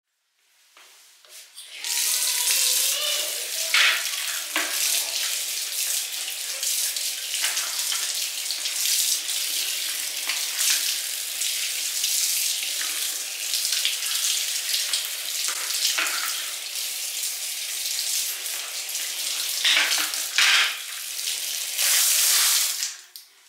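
Water running from a wall tap, splashing onto a cardboard model car and the tiled floor below. It starts about two seconds in and stops shortly before the end when the tap is shut off.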